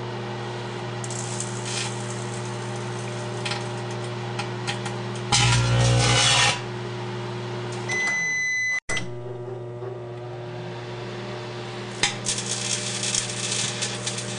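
Microwave oven running with its steady hum while electrical arcing crackles inside it, with a loud buzzing burst of arcing about five seconds in. About eight seconds in a single beep sounds for nearly a second; the hum then resumes with more bursts of crackling arcing near the end.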